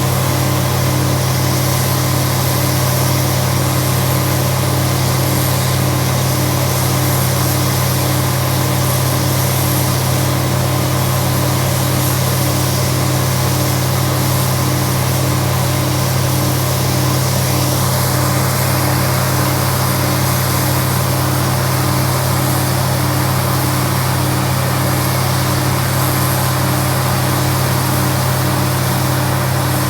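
Case IH 1660 combine running steadily under load while harvesting corn, its 8.3-litre turbocharged Cummins diesel giving a constant low drone with a regular pulsing tone above it. The higher-pitched machinery hum shifts a little past halfway.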